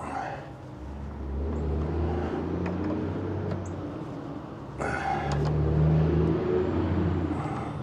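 A motor running with a low drone whose pitch shifts and swells. There is a short noisy burst about five seconds in.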